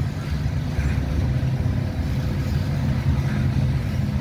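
Loaded coal hopper cars rolling past on steel wheels, over the steady low drone of diesel locomotives working hard under load.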